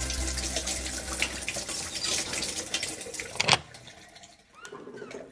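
Tap water running and splashing into a washbasin as hands are washed under it. It cuts off with a sharp splash about three and a half seconds in.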